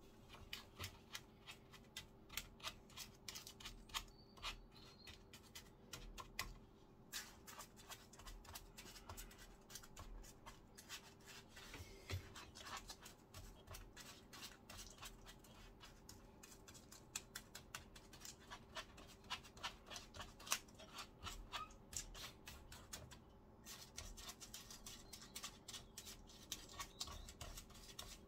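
Faint, irregular scratching and tapping of a wooden tart tamper pressing crushed-biscuit crumbs into paper cupcake liners in a metal muffin tin.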